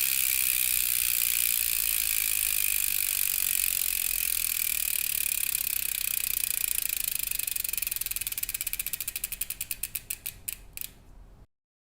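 Bicycle rear hub freewheeling as the wheel coasts down. The fast ratchet buzz slows into separate clicks spaced further and further apart, then stops near the end as the wheel comes to rest.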